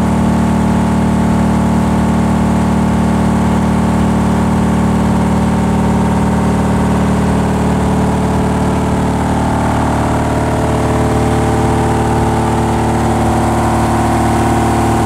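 22-inch Sutorbilt rotary lobe blower, belt-driven by an electric motor on a variable frequency drive, running steadily at about 750 RPM on its test run after a rebuild. A loud, even hum with several steady tones, a higher tone growing a little in the second half.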